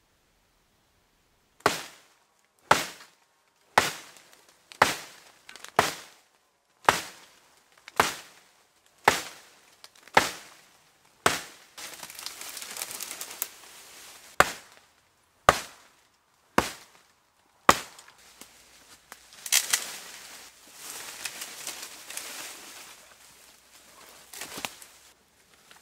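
Stone axe chopping into a hazel sapling's stem: sharp blows about one a second, ten in a row, then four more and a last one near the end. Between the runs of blows come two stretches of rustling and crackling.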